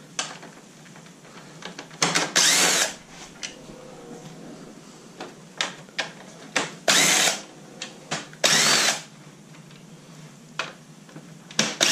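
Cordless drill with an 8 mm socket running in several short bursts of about half a second, backing bolts out of a pickup's plastic grille bracket. In each burst the motor whine rises and then falls. Light plastic clicks and taps come between the bursts.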